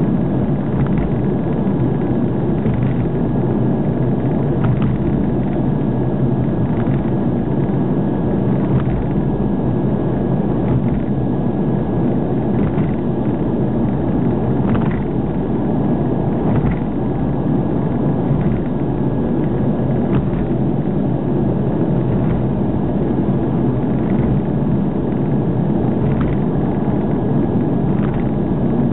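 Steady low road and engine noise of a car cruising on an expressway, heard from inside the cabin, with light ticks every second or two.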